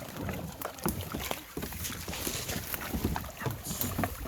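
Kayaks being pushed off from shore: scattered, irregular knocks and scrapes of the hulls and paddles.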